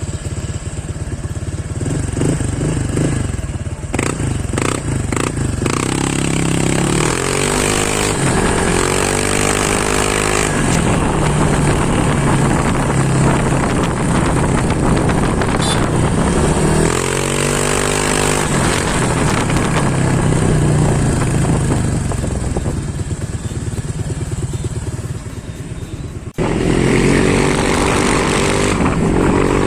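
Honda Click 125i scooter's single-cylinder engine through an MT8 aftermarket exhaust pipe, revved up several times, its pitch climbing and falling. The sound breaks off abruptly about 26 seconds in and comes back louder and higher.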